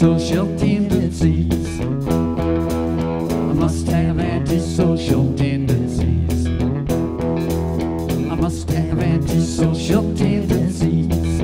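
Rock band playing live: two electric guitars over bass and drums, with sung vocals.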